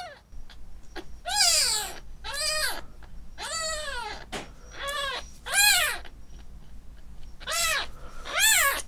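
A kitten about fifteen days old mewing over and over as a wet tissue wipes it: about seven short, high cries, each rising and then falling in pitch, with two of the loudest a little before the middle and near the end.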